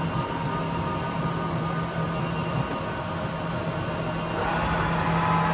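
Weiler E110 cycle-controlled lathe running with its spindle and large faceplate chuck turning: a steady mechanical hum, with a higher whine coming in and the sound getting a little louder about four seconds in.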